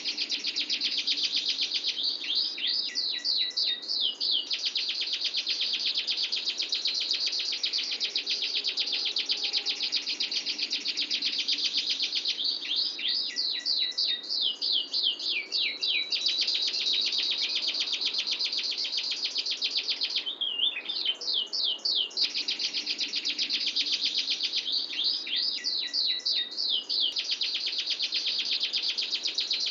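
Domestic canary singing one long, unbroken rolling song of fast, tight, clear trills, high in pitch. Every several seconds the trill gives way to runs of quick falling notes, then rolls on.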